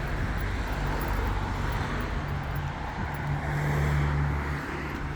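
A car engine running at idle: a steady low hum that swells for a second or so just past the middle, then settles again.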